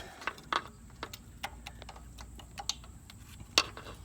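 Irregular light clicks and clinks of metal hand tools, such as a spark plug socket and pliers, being handled while spark plugs are changed, with two sharper clicks about half a second in and near the end.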